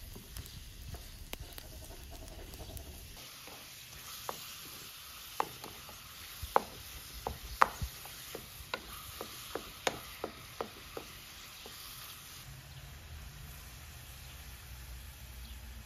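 Minced meat sizzling in a steel pan while a wooden spoon stirs it, knocking against the pan in a run of sharp taps from about four to eleven seconds in.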